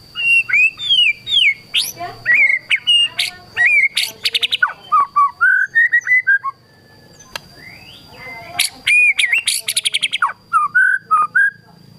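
White-rumped shama (murai batu) singing a varied song of whistled glides and fast rattling trills. It sings in two bursts with a pause of about two seconds in the middle.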